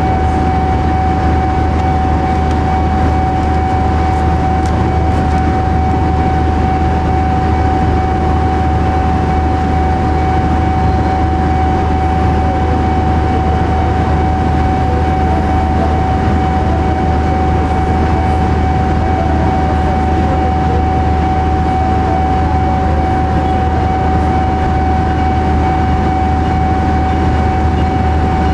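Diesel-electric locomotive engine running as the locomotive moves slowly, a steady low drone with an unchanging high whine over it.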